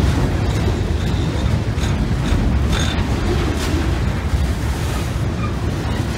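Loaded freight cars of a unit steel train rolling across a steel trestle: a steady heavy rumble with a few short knocks of wheels over the rails and faint brief squeals.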